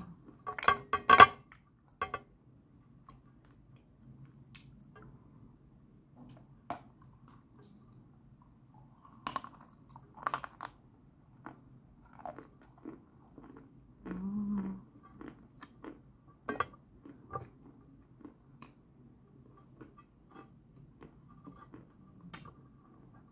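Close-up biting and chewing of a lump of white chalk: a burst of loud, sharp crunches about a second in as a piece is bitten off, then quieter crunching while chewing, with two more loud crunches around the middle. A short low hum is heard about two-thirds of the way through.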